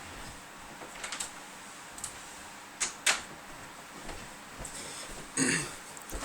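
Scattered clicks and knocks of someone moving about and opening a door to let a cat in, the loudest knock about three seconds in, followed by a short rasping sound near the end.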